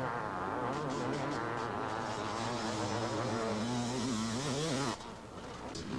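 Two-stroke 500cc motocross bike engine buzzing, its pitch rising and falling as the rider works the throttle. It breaks off about five seconds in.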